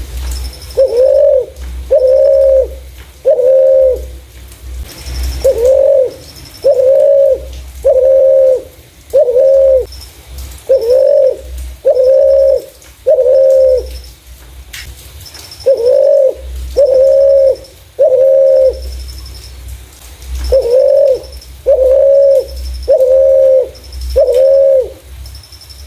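Spotted dove (terkukur) cooing: loud low coos about one a second in runs of three to eight, with short pauses between the runs. Faint high chirps repeat in the background.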